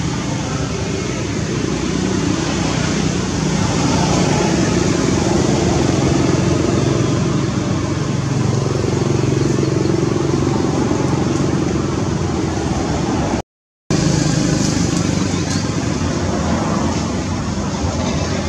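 Steady outdoor background of motor traffic, a low engine drone that slowly rises and falls under a haze of noise. The sound cuts out for an instant about two-thirds of the way through.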